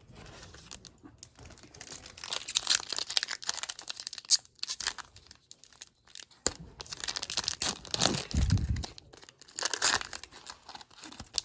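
Foil wrapper of a Panini Mosaic baseball card pack crinkling and tearing as it is opened by hand, in irregular crackles, with a dull low bump about eight seconds in.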